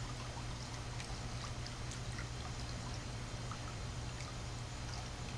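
Steady low hum under an even hiss, with a few faint scattered ticks.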